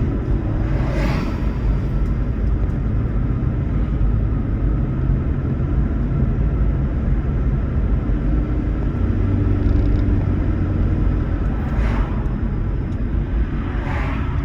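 Toyota Prius driving on the road: a steady low rumble of road and tyre noise, with brief hissing swells about a second in and twice near the end.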